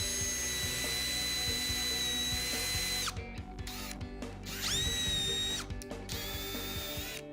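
Power drill with a 3/16-inch bit boring into a deer antler. The motor whines steadily for about three seconds and stops, then runs again in two short bursts, pitch rising as it spins up, as the trigger is pulsed.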